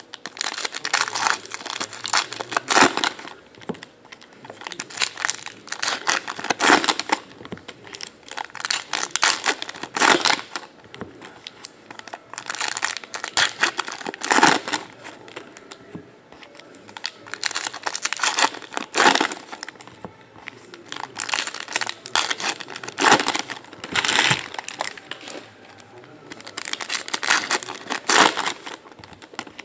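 Foil wrappers of Panini Hoops basketball card packs being torn open and crinkled by hand. The tearing and crackling comes in repeated bursts every couple of seconds, with quieter gaps between them.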